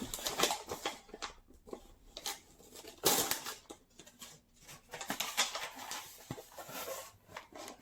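Rustling and crinkling of snack wrappers and box packaging as a snack box is unpacked by hand, in irregular bursts with a louder rustle about three seconds in.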